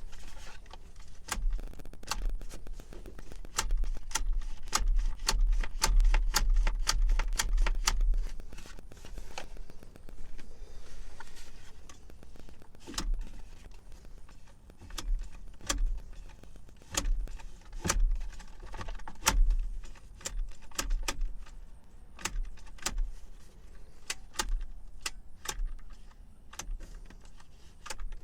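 Seatbelt retractor being worked by hand: rapid, irregular clicking and rattling of its locking mechanism and the metal latch plate, busiest in the first eight seconds, with low bumps from handling. The retractor's lock is stuck and won't let the belt go.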